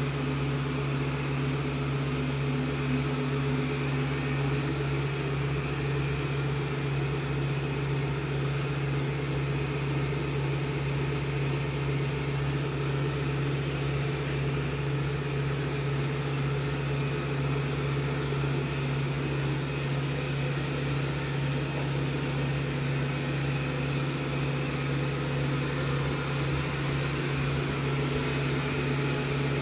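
Rowenta X-plorer Serie 60 robot vacuum cleaner running: a steady, even motor hum with a strong low tone.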